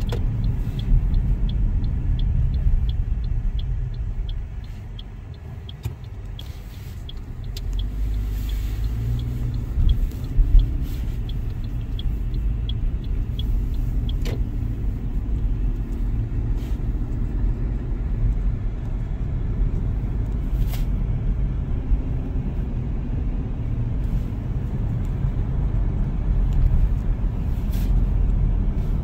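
Car cabin noise: a low, steady rumble from the engine and tyres, which drops for a few seconds about four seconds in as the car slows and stops, then rises again. Through the first dozen seconds a turn-signal indicator ticks about three times a second.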